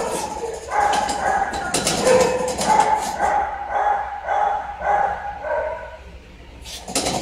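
Excited pug yipping in a quick run of short, high, even-pitched calls, about two a second, while begging for treats.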